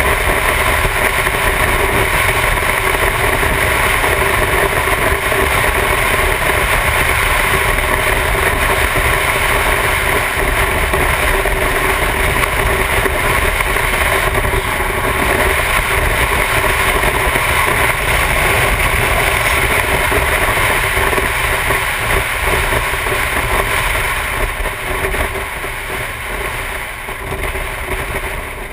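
Motorcycle cruising at highway speed: a steady engine drone mixed with heavy wind rush on the on-bike microphone. It gets somewhat quieter over the last few seconds.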